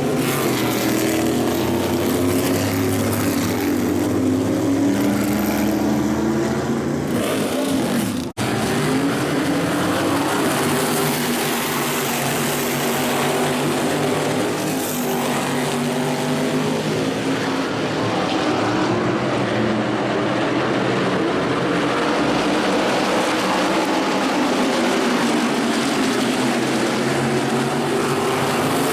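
Several modified race cars' V8 engines running together on the track, their pitch rising and falling as the cars go round and pass. The sound drops out for an instant about eight seconds in.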